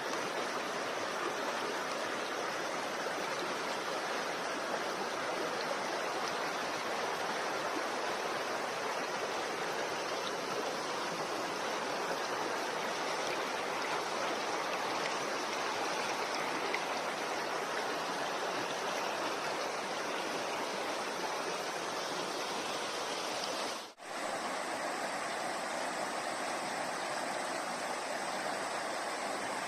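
Waterfall: a steady, dense rush of falling water that drops out for an instant about three-quarters of the way through, then carries on.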